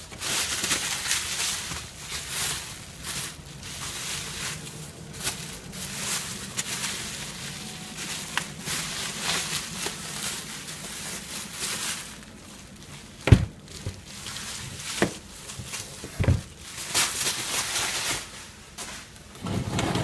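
Bubble wrap rustling and crinkling as it is handled and pulled away from a radio chassis. Three sharp knocks come in the second half, the loudest a little past the middle.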